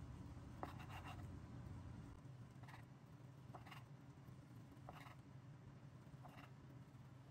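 Kitchen knife slicing through a seaweed-wrapped kimbap roll on a cutting board: a faint, short crunch of the blade going through the roll with each cut, several in a row at irregular spacing, over a low steady hum.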